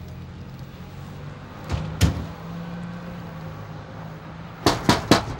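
A car engine idling steadily while a car door slams shut about two seconds in, followed by three quick, sharp knocks near the end.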